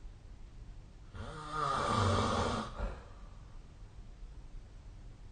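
A sleeping person snoring: one snore with a low, buzzing pitch begins about a second in and lasts about a second and a half, followed by quieter breathing.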